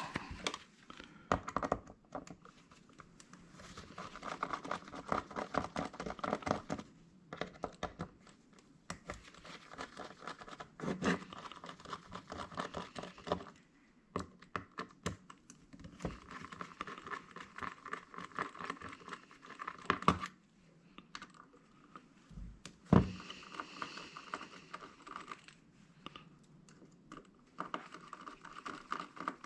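Screwdriver backing small screws out of a computer hard drive's case: long stretches of rapid, fine clicking with short pauses between them, and a couple of sharp knocks of the tool or drive against the bench.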